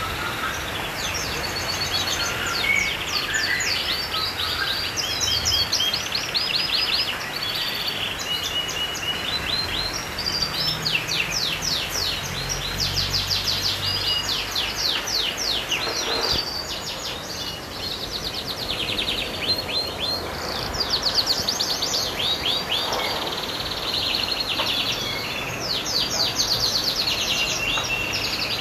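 Canary singing: long, rapid trilled phrases of repeated notes, one run after another, over a low background rumble.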